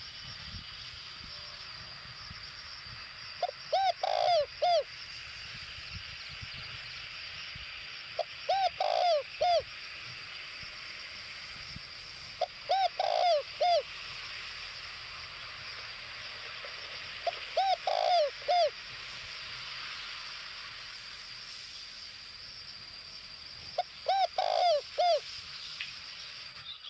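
Spotted dove kept as a decoy cooing: five short phrases of three or four notes each, one every four to five seconds, over a steady high-pitched background hiss.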